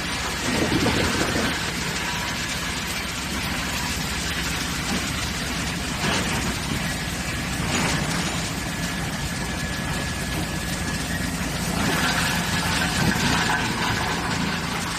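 Industrial wood chipper running: a steady machine hum with several louder, noisier spells.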